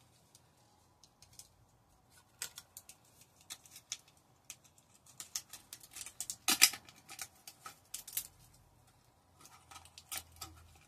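Plastic packaging of textured craft vinyl being opened and handled: scattered crinkles and snaps, with a louder cluster of crackles about six and a half seconds in.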